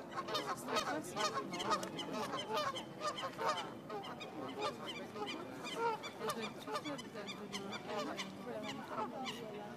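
Canada geese honking among a flock of waterbirds: many short overlapping calls, one after another throughout.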